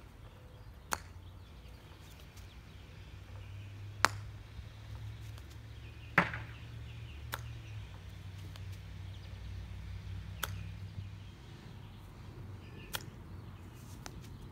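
Golf iron striking golf balls off short-mown grass: a series of sharp clicks of clubface on ball, the two loudest about four and six seconds in, over a low steady hum.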